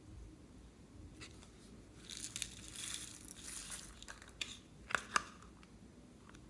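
Slime being handled: a stretch of crackly, crinkling noise in the middle, then a few sharp clicks and pops.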